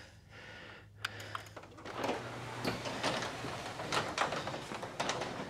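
Sectional garage door being raised: a few sharp clicks about a second in, then from about two seconds in a steady rolling noise with an uneven rattle as the panels travel up the tracks.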